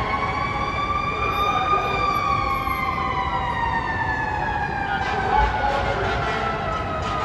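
Fire truck siren wailing: its pitch rises a little over the first couple of seconds, then falls slowly and steadily, over the hum of city traffic. A brief low thump comes about five seconds in.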